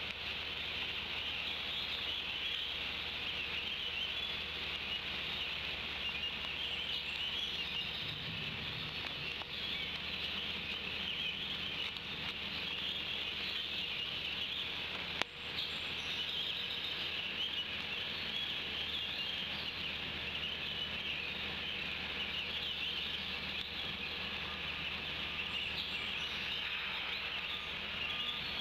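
Steady outdoor background of a dense songbird chorus with wet, rainy hiss, and one sharp click about halfway through.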